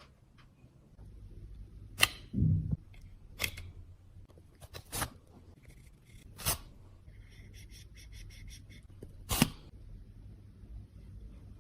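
Sharp clicks and taps of small hard cosmetic cases and tools being handled, five or so spread out, with a dull thud about two seconds in and a quick run of ticks, like a fine ratchet or twist mechanism, a little past the middle.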